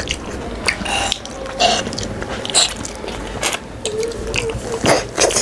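A person eating close to the microphone: wet chewing and lip-smacking clicks, with a short closed-mouth hum about four seconds in.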